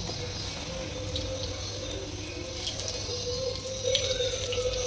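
Samosa deep-frying in hot oil: a steady bubbling sizzle, with a steady hum underneath.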